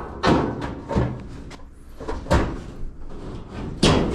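Clunks and bangs of a clothes dryer's cabinet parts being handled and fitted back together: four or so sharp knocks, the loudest near the end.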